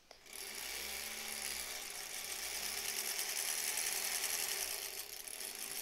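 Vintage sewing machine running steadily as it stitches through a folded fabric tie strip. It starts just after the beginning and eases slightly near the end.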